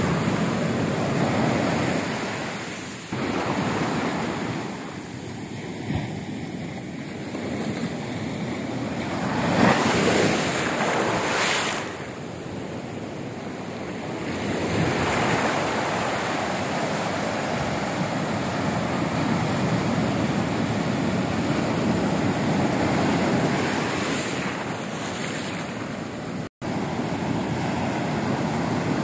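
Ocean surf: waves breaking and foaming up a sandy beach, swelling and easing with each wave, loudest about ten seconds in. The sound drops out for an instant near the end.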